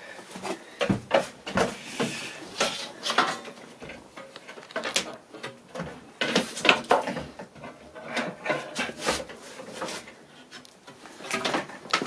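Irregular knocks, clicks and short scrapes of a kitchen cabinet drawer being handled and fitted into its cabinet.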